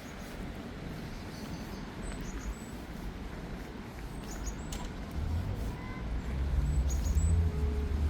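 Street ambience: small birds chirping in short, high calls over steady city background noise, with a low rumble of traffic growing louder in the second half.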